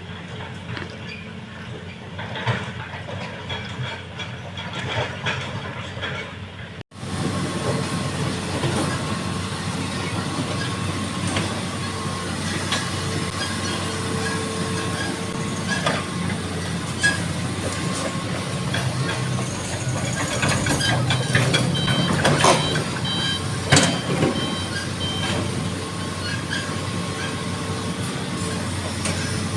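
Excavator's diesel engine running steadily, with scattered knocks and clanks of the working machine. The sound drops out sharply for a moment about a quarter of the way in and comes back louder. A short run of high beeps comes about three-quarters through.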